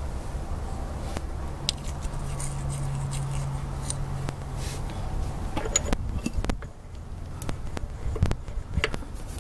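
Light metal clicks and knocks of a tool and pin being worked at a tractor's rear axle hub, a few scattered taps starting about halfway through and coming thicker near the end.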